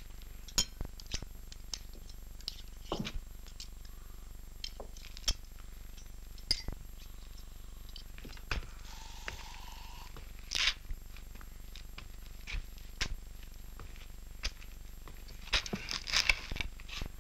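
Scattered small clicks, clinks and knocks of objects being handled on a table, over the steady hum and hiss of an old optical film soundtrack. A brief faint tone sounds about nine seconds in, and a cluster of clatter comes near the end.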